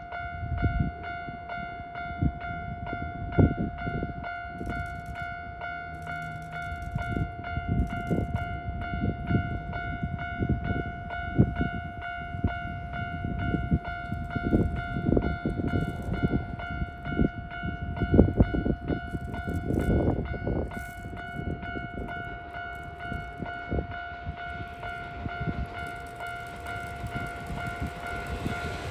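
Level crossing warning bell ringing a steady electronic tone while a Kintetsu 1430/2430-series electric train passes, its wheels knocking irregularly over the rail joints. The bell stops near the end.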